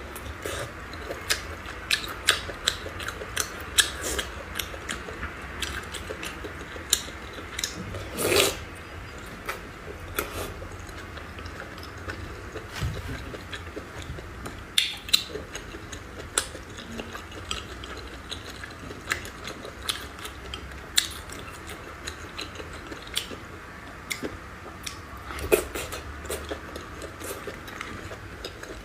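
Close-miked eating sounds: chewing and biting into food, with many small irregular crackles and clicks over a steady faint hiss.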